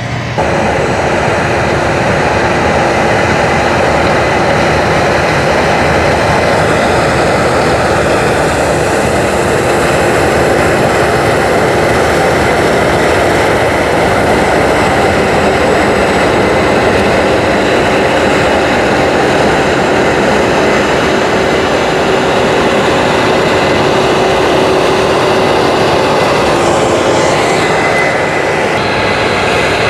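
Combine harvester running steadily, a loud, even machine noise with a few steady tones through it.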